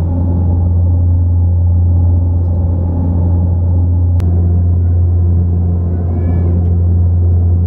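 Steady cabin drone of an Antonov An-24B's Ivchenko AI-24 turboprop engines and propellers in flight, dominated by a deep, even propeller hum. A single sharp click sounds about four seconds in.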